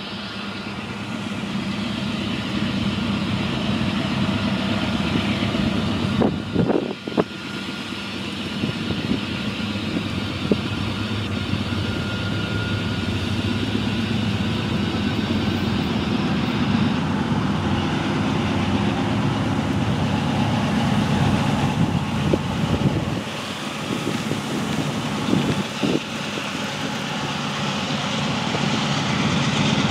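Norfolk Southern diesel locomotive hauling a slow oil train, its engine rumble steadily growing louder as it approaches.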